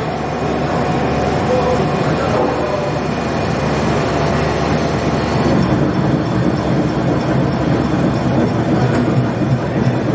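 Smoked-salmon slicing machine running, a loud, steady mechanical noise.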